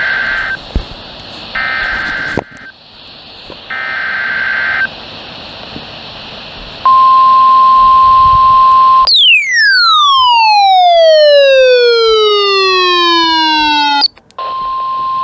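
Three short warbling bursts of Emergency Alert System (SAME) header data, a second or so apart, from a NOAA Weather Radio broadcast. Then the steady 1050 Hz weather-radio alert tone, cut off after about two seconds by a loud tone that falls steeply in pitch over about five seconds. The alert tone starts again near the end.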